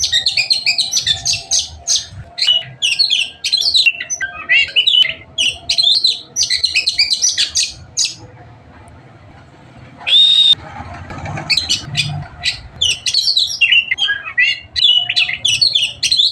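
Songbird chirping and twittering in quick runs of short high notes. The song pauses about eight seconds in, a single clear whistled note comes at about ten seconds, and then the twittering starts again.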